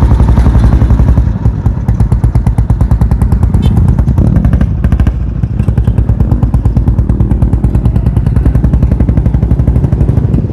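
Old diesel engine converted to run on petrol, fitted in a motorcycle, running with a rapid, even chug of firing strokes. The owner says this engine still often detonates, perhaps because the ignition timing or the fuel is not yet right.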